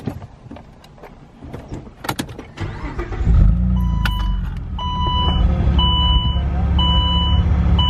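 A few clicks, then the 2008 Saab 9-3 Turbo X's turbocharged 2.8-litre V6 starts about three seconds in and settles into a steady idle. From about four seconds in, an electronic chime beeps about once a second.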